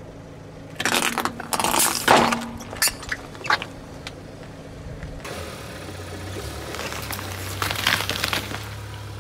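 Car tyre rolling onto rubbery spiky puffer-ball toys, giving a run of crackles and pops as they are squashed flat against the asphalt. After a cut, a car engine hums low while the tyre crushes a pile of small crunchy items, with a short burst of crunching a little before the end.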